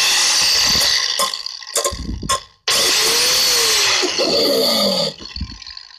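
DeWalt angle grinder running in two bursts of about two and a half seconds each, its disc grinding through a steel nail. At the end of the second burst the motor winds down with a falling whine.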